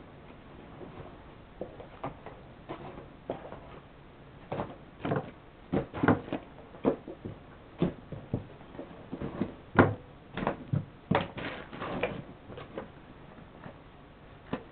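Books, folders and small items being packed back into a fabric backpack: irregular knocks, bumps and rustles, thickest and loudest in the middle stretch.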